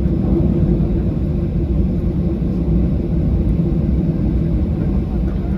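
Steady low rumble of a Boeing 737-800 airliner heard from inside the cabin, its CFM56 engines running with a few steady low tones in the noise, typical of the aircraft taxiing before takeoff.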